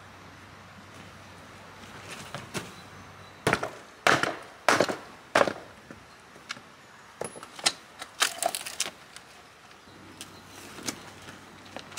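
Weathered, rotting wooden raised-bed frame boards being pried and pulled apart: a series of sharp cracks and knocks of wood, loudest in a cluster from about three and a half to five and a half seconds in, with more clattering a couple of seconds later.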